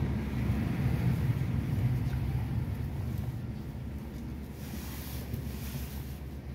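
Low engine and road rumble heard inside a car's cabin while it drives slowly, easing off about three seconds in as the car comes to a stop.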